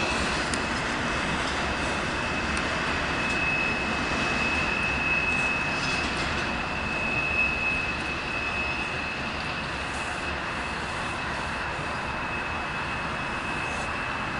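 CSX intermodal freight train rolling away on the rails: a steady rumble of wheels on track that eases slightly in the second half, with a thin, steady high-pitched squeal above it.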